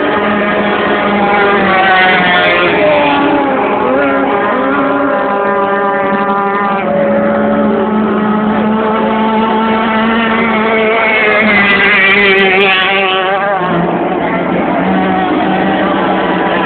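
Motorboat engines running at speed: one engine note holds steady while other engine notes rise and fall, swelling about two seconds in and again near the twelve-second mark.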